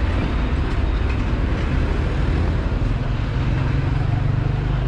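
Street traffic: vehicle engines running close by, with a steady low engine hum coming in about three seconds in.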